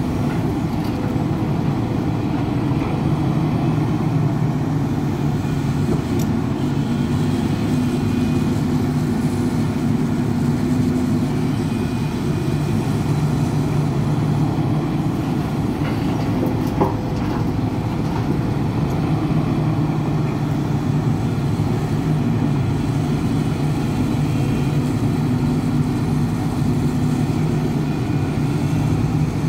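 Hidromek HMK 310LC tracked excavator running steadily under working load, a low, even engine rumble as it digs and loads a dump truck, with one brief knock about 17 seconds in.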